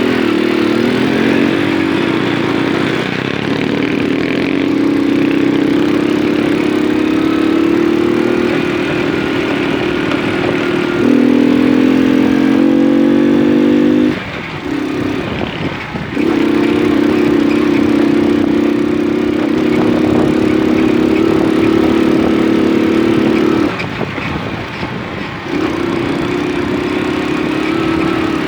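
Moped engine running while riding, its pitch stepping up and down with the throttle. It rises for a few seconds, then eases off briefly twice, about halfway through and again a few seconds before the end.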